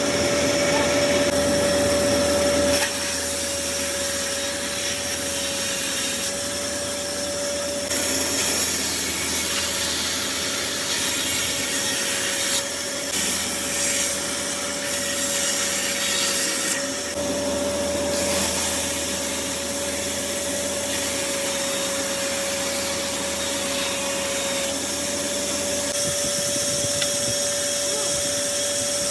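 Woodworking machine running with a steady whine while its blade cuts into wood, the cutting noise shifting in strength and texture every few seconds.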